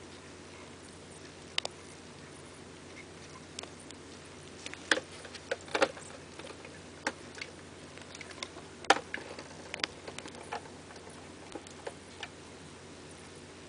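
Irregular sharp clicks and crackles of a six-spotted ground beetle's (Anthia sexguttata) mandibles crunching through a grasshopper's hard body, scattered and uneven, loudest about nine seconds in.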